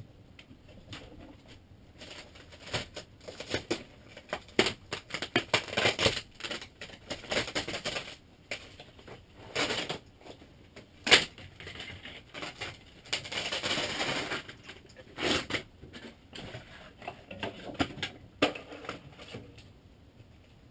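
Irregular crackling, rustling and snapping of RV ceiling paneling and insulation being pulled and torn down by hand, with one sharp knock about eleven seconds in.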